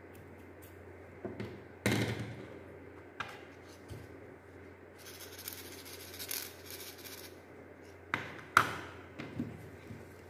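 Plastic parts of a small handheld fan being handled and fitted together: a series of sharp plastic clicks and knocks, the loudest about two seconds in and near the end, with a scraping rustle in the middle.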